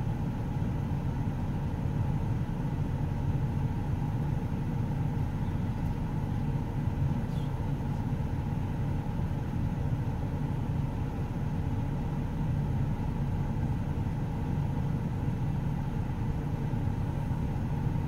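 Steady low rumble inside a car's cabin, the car's engine running while the car sits nearly still in traffic.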